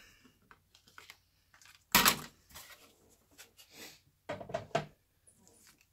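Hard plastic clacks and knocks from a die-cutting sandwich of clear acrylic cutting plates, a thin metal die and cardstock being set down and taken apart. One sharp clack comes about two seconds in, and a few lighter knocks follow near four and a half seconds, with light rustling in between.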